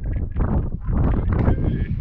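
Footsteps squelching and sucking through wet mud on the tidal sea floor, an uneven run of soft knocks, over wind buffeting the microphone.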